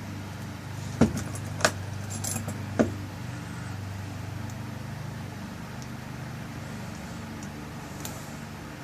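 A few sharp metal clicks and taps in the first three seconds as the tail piece is fitted and screwed onto a lock cylinder. A steady low hum runs underneath.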